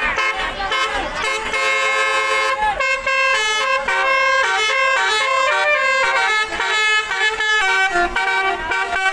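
Bus's multi-tone telolet musical horn (basuri type) playing a tune. Held horn notes change pitch for the first couple of seconds, then it plays a quick run of short repeated toots from about three seconds in.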